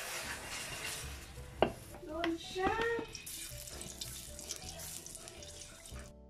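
Wooden spatula scraping around an aluminium wok as the oil in it heats, over a steady hiss. The spatula knocks sharply on the wok once, about one and a half seconds in.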